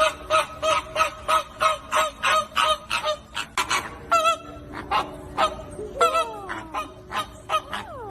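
Flamingo flock honking: a fast run of short nasal calls, about four a second, for the first few seconds, then sparser calls with a few notes that slide down in pitch.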